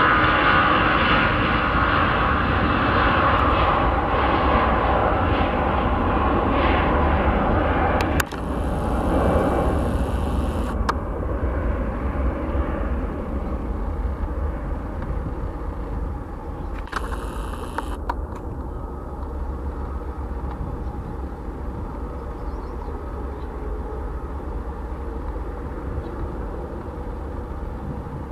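Airbus A321-211's twin CFM56 turbofan engines at takeoff power through the takeoff roll and climb-out: a loud, steady jet rumble that breaks off abruptly about 8 seconds in, then fades as the aircraft climbs away.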